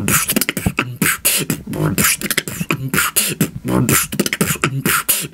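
Beatboxing: a steady rhythm of mouth-made drum hits, sharp snare- and hi-hat-like bursts alternating with short low hummed bass notes.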